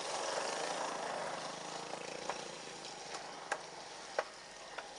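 Street traffic noise, a steady wash with a faint engine hum in the first couple of seconds. A few sharp clicks stand out, the loudest about three and a half and four seconds in.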